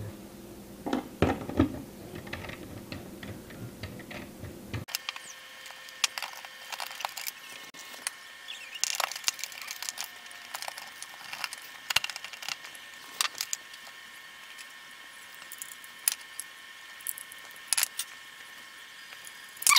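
Scattered light clicks and taps of hand work: a small screwdriver and stripped wire ends being worked into screw terminals, and plastic LED controller cases being handled. About five seconds in, a faint steady hum comes in behind the clicks.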